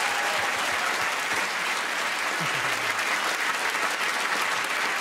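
Studio audience applauding, a steady dense patter of many hands clapping.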